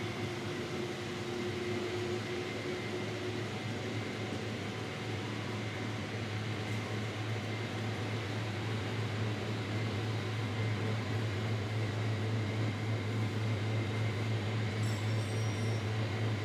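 Steady low mechanical hum under an even hiss, growing louder about five seconds in, with a faint high whine throughout.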